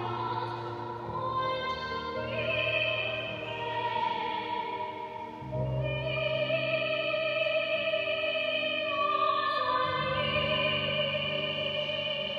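A woman singing a classical sacred song in operatic style: long held notes that change pitch every couple of seconds, over a steady low instrumental accompaniment.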